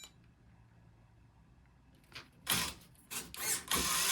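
RC rock crawler's electric motor and geared drivetrain. After about two seconds of near silence it gives a few short mechanical bursts, then starts running steadily with gear noise near the end.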